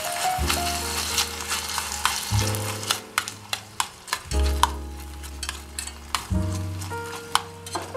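Ground pork and vegetables sizzling in a miniature saucepan as a small metal spoon stirs in tomato sauce, with repeated sharp clicks and scrapes of the spoon against the pan. Background music with slow, sustained low notes plays underneath.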